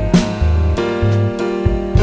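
Background music: instrumental track with sustained bass and chords over a beat.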